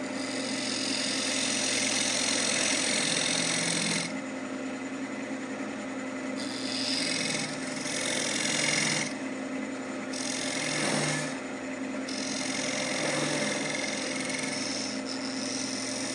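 Wood lathe running with a steady hum while a turning tool cuts a spinning pecan bowl blank, the hiss of the cut coming and going in stretches of a few seconds as the tool is pressed in and eased off.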